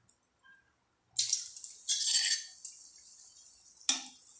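Dried red chillies hitting hot mustard oil in a metal kadai: a sudden sharp sizzle about a second in that settles into a steady hiss. About four seconds in, a metal spatula clacks against the pan as the chillies are stirred.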